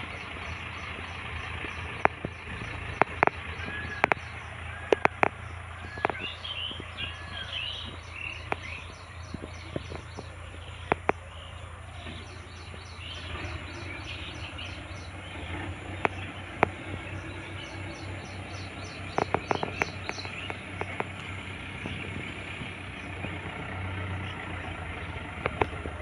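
Outdoor ambience of insects calling in a steady, rapid high-pitched pulsing, with a bird giving four or five short repeated arched calls about five to seven seconds in, and scattered sharp clicks throughout.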